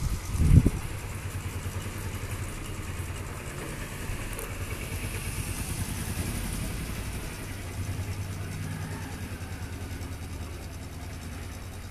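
A small engine idling steadily, a low even hum with a fast pulse. A single knock about half a second in.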